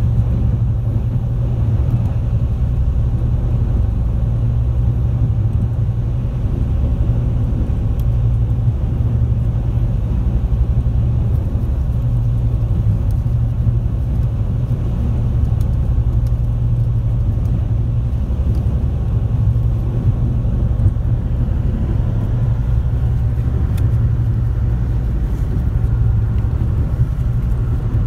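High-speed passenger boat's engines running steadily under way, heard from inside the cabin as a constant low drone with hull and water noise.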